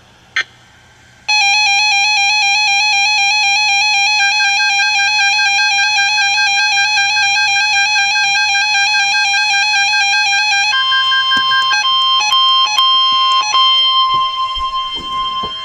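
Emergency Alert System attention signal: a loud electronic alert tone that warbles rapidly, then about ten seconds in switches to a higher steady tone broken by clicks, preceded by a single click.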